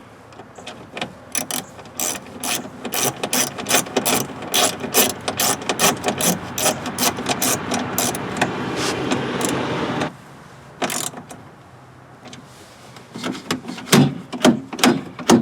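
Ratchet wrench clicking rapidly as a bolt is run in, stopping abruptly about ten seconds in. A few louder separate clicks follow near the end.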